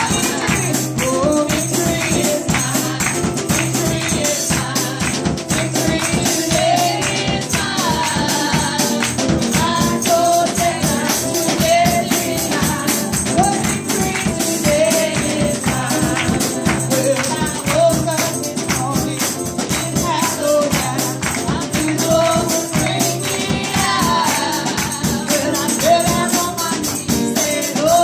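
Upbeat worship song: a singing voice over a busy, steady percussion beat with tambourine.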